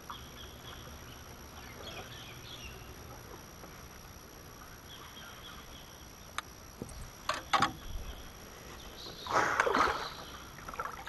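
A hooked fish splashing at the surface beside the boat near the end, after a few sharp clicks and knocks a few seconds earlier; otherwise quiet river ambience.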